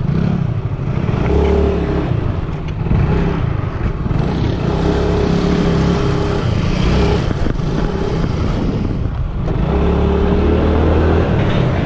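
A small motorbike engine runs as the bike rides along a road at speed, under a loud rush of wind on the handlebar-mounted microphone. The engine's steady note swells and fades a few times.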